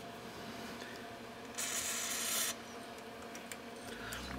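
One short hiss from an aerosol can of contact cleaner, just under a second long and starting about one and a half seconds in, sprayed onto the oscilloscope's dirty switches and potentiometers. A few faint ticks of handling around it.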